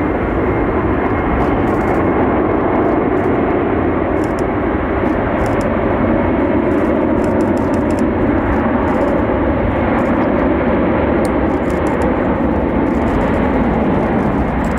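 Jet engines of a heavy Boeing cargo plane at takeoff power: a loud, steady jet roar with faint, slowly shifting tones in it.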